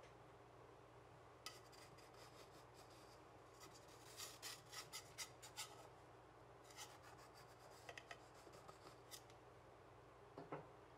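Faint scraping of a knife blade run around the inside rim of a round metal cake pan, loosening the baked cake from the pan wall, in several short runs of strokes. A light knock near the end.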